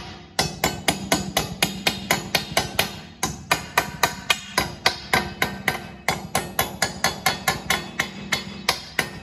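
Light hammer taps on steel in quick succession, about four or five a second, each with a short metallic ring. They are small blows to turn a hydraulic cylinder's piston head tighter on its rod until it lines up.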